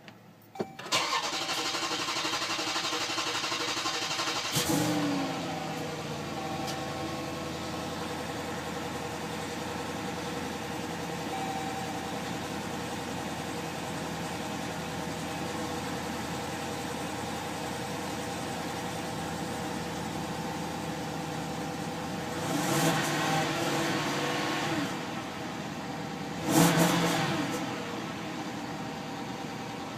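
Jeep Grand Cherokee SRT8's 6.4-litre HEMI V8 cranking for about four seconds before it catches, flares and settles to a steady idle: a long crank on a car that is hard to start. It is revved briefly three times near the end.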